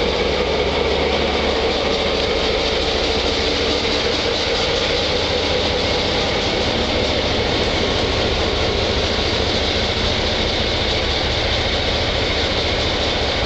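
An NMBS/SNCB class 62 diesel locomotive's EMD two-stroke V12 engine running steadily at low power as the locomotive rolls slowly past along the track.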